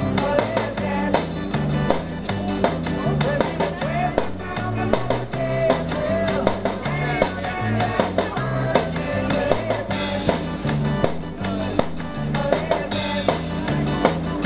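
Instrumental break of a recorded upbeat pop song: a guitar melody over a stepping bass line, with a small drum kit and cymbals struck in a steady beat along with it.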